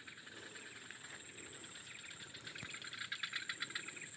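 Birds and insects chirping in a swamp: a fast run of short chirps that grows louder about halfway through, over a steady high-pitched insect whine.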